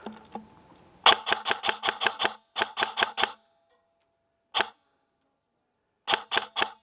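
Airsoft electric gun firing in rapid bursts of sharp clicks: a run of about nine shots a second in, a burst of four, a single shot, then another burst of four near the end.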